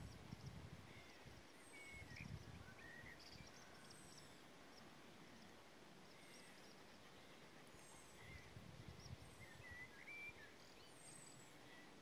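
Faint birdsong from more than one bird: a thin, high note sliding downward, repeated every second or two, among short wavering chirps. There are occasional low rumbles under it.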